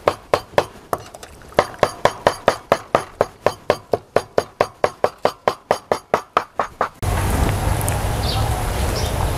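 A rapid, evenly spaced series of sharp clacks, about four a second, that stops abruptly about seven seconds in. Then a steady outdoor background follows with a few short bird chirps.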